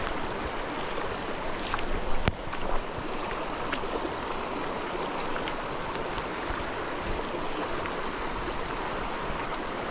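Small mountain creek running: a steady rush of moving water, with a few brief sharp clicks about two to four seconds in.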